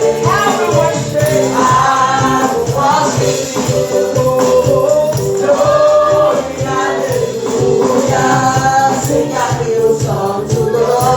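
Live gospel praise-and-worship music: voices singing over a band, with a tambourine shaken in rhythm throughout.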